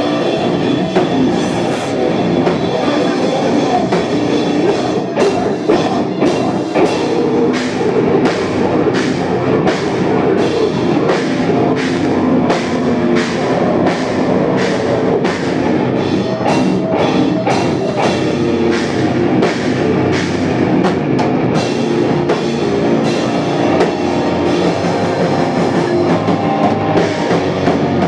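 A live heavy rock band playing loudly: bass guitar, electric guitar and drum kit, with sharp drum and cymbal hits about twice a second through most of it.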